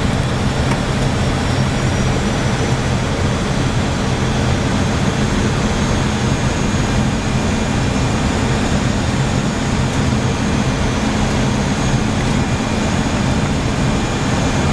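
Steady flight-deck noise of an Airbus A319-112 on final approach, powered by CFM56 turbofans: an even rushing noise with a steady low hum and no breaks or events.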